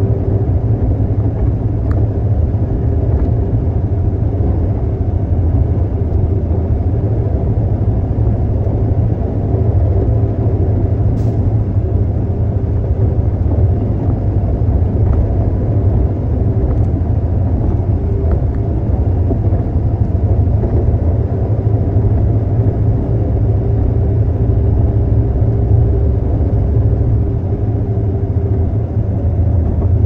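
Concrete mixer truck's diesel engine running with a loud, steady low rumble and a faint hum above it.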